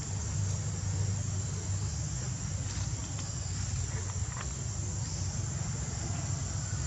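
Outdoor ambience: a steady high-pitched insect drone over a low rumble of wind on the microphone, with a couple of faint ticks.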